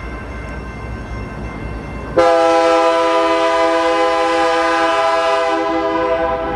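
BNSF diesel freight locomotive approaching with a low rumble. About two seconds in, its multi-chime air horn sounds one long, loud, steady blast that holds for over four seconds before fading at the end.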